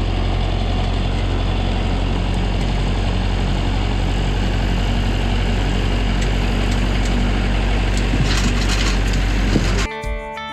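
A large engine running steadily at idle with a deep, even hum and a few light rattles. It cuts off abruptly near the end, giving way to guitar music.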